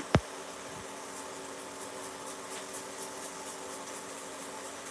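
A kitchen exhaust fan runs with a steady hum. A single sharp knock comes just after the start, and a few faint ticks follow in the middle.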